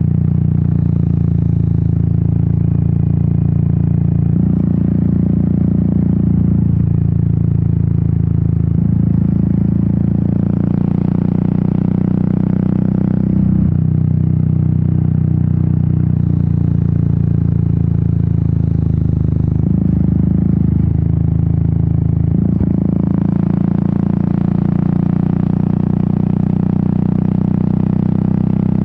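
Royal Enfield Meteor 350's single-cylinder engine and exhaust running under way. The engine note shifts in pitch several times as the revs change, and rushing wind noise swells twice.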